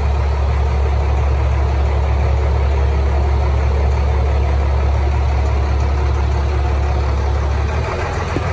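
Engine of a feed vehicle running steadily with a deep drone, heard from inside its cab, as it moves down a barn feed alley at feeding time. The drone eases off a little near the end.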